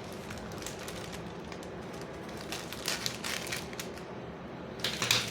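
Handling noise from the boxed socket set: a few short clicks and rattles about two and a half to three seconds in, and a louder cluster near the end, over a steady background hum.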